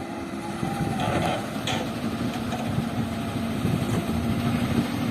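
Heavy diesel engines running steadily: a Komatsu PC200 excavator and a dump truck working at a sand loading site. A brief knock sounds just under two seconds in.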